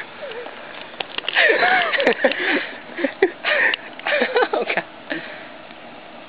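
Indistinct voices of people nearby, too unclear for words, between about one and five seconds in, with a few short clicks.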